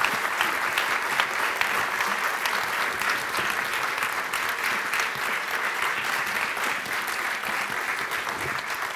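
A large audience applauding, a dense steady patter of many hands clapping that tapers off slightly near the end.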